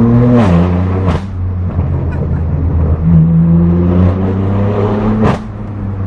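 BMW M4 F82's S55 twin-turbo inline-six running through a straight-piped AWE track exhaust under throttle. Its pitch drops at a gear change about half a second in and again just after five seconds, with sharp cracks from the exhaust around the shifts.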